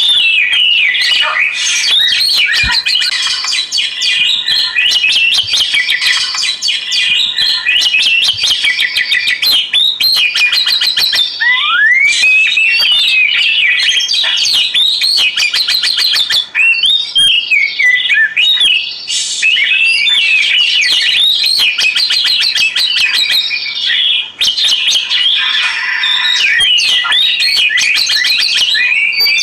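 Oriental magpie-robin (kacer) singing continuously: a loud, varied stream of whistled notes, quick rising and falling glides and fast rattling trills.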